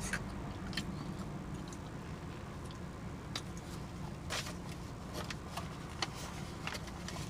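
Steady low hum in a car's cabin, with scattered light clicks and small handling noises at irregular moments.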